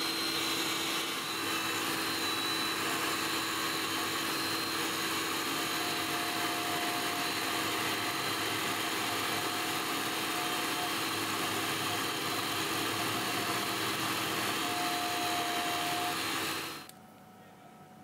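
Tool-and-cutter grinder running a coarse diamond cup wheel, plunge-grinding the face of a tungsten carbide insert: a steady grinding hum with a thin whine that comes and goes. It stops abruptly near the end.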